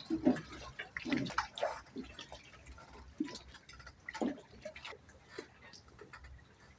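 River water lapping and splashing against the hulls of moored motorboats and a wooden dock, in irregular small slaps and drips.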